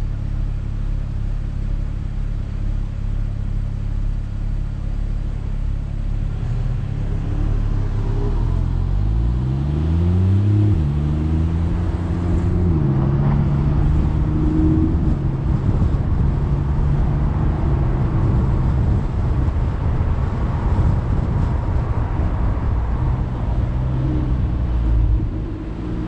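Car engine and road noise heard from a camera mounted outside on the hood. About a third of the way in the engine note climbs, drops back and climbs again as the car speeds up, then holds steady while it cruises; tyre and wind noise runs underneath.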